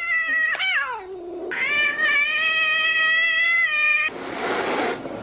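Domestic cat yowling: a drawn-out call that sinks away about a second in, then one long, steady yowl of about two and a half seconds, followed near the end by about a second of hissing.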